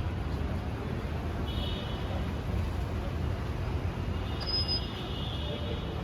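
Steady street traffic noise, a low rumble, with short high-pitched tones about a second and a half in and again about four seconds in.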